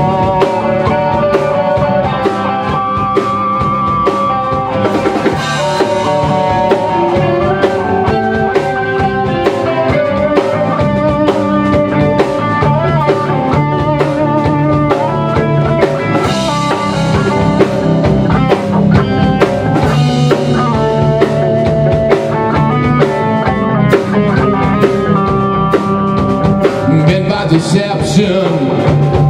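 Live rock band playing an instrumental passage: electric guitars, electric bass and a DW drum kit. A guitar plays sustained melodic lines over a steady drum beat and bass line.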